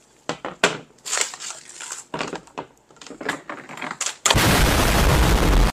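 Vacuum-sealed frozen chicken packs crinkling and knocking as they are rummaged out of a chest freezer. About four seconds in, a loud, close rustle takes over.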